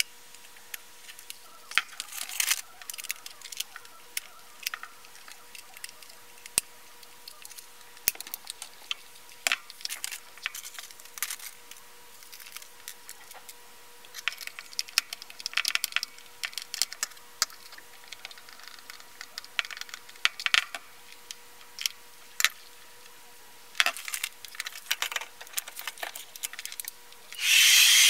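Hands handling a plastic hair dryer and tools on a wooden workbench: scattered clicks, taps and rustles over a faint steady hum. A loud steady rush of noise starts near the end.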